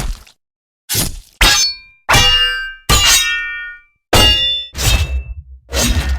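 Sword and axe slash sound effects, one after another: about seven sharp hits in quick succession, several of them ringing like struck metal.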